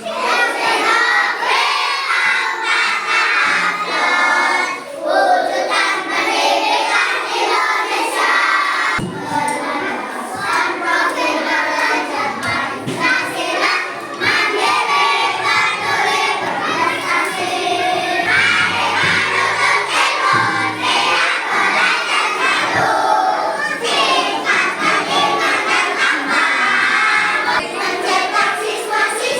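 Children's choir of primary-school pupils singing a school march together, many young voices in unison.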